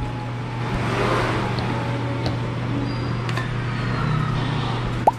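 Steady electrical hum and mechanical noise from a claw machine as its claw drops into the prize pile, with a few faint clicks and a short rising tone near the end.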